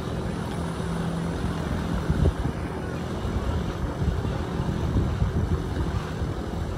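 Wind buffeting the phone's microphone: a low, uneven rumble, gusting harder about two seconds in and again around five seconds.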